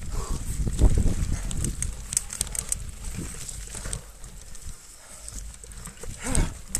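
Mountain bike rolling over a rooty, leaf-strewn dirt trail: tyres crunching over the ground and the bike rattling over roots, with the rider breathing hard. The clatter eases after about four seconds, and a short vocal sound comes near the end.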